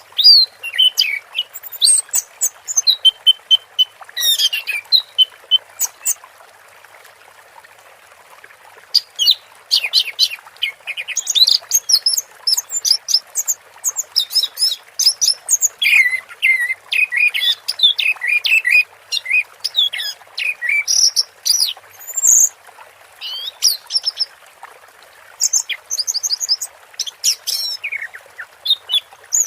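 Orange-headed thrush (anis merah) singing a long, varied song of quick whistled and chattering phrases, with a short break about seven seconds in. This is the continuous, trance-like 'teler' song that keepers prize. A steady faint hiss runs underneath.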